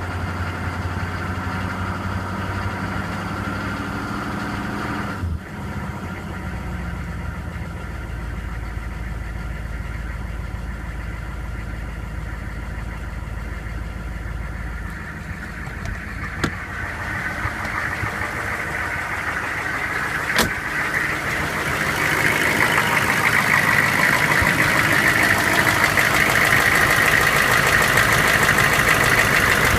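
Chevrolet K2500's 6.5-litre diesel V8 running with a knocking sound. The engine note shifts a few times, there are two short sharp clicks near the middle, and about two-thirds of the way through the sound grows louder and brighter and stays that way.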